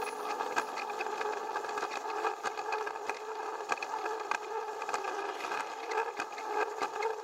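Plarail battery toy train's small electric motor whirring steadily as it runs along plastic track, with frequent clicks of the wheels over the track joints.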